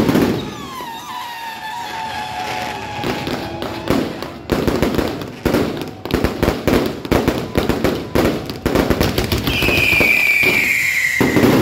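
Aerial fireworks display: shells launching and bursting overhead, with a rapid run of bangs and crackles through the middle.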